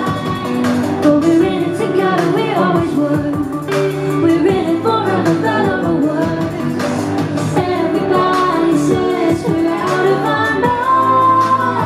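Live pop song: a woman sings the lead vocal over electric guitar and accompaniment.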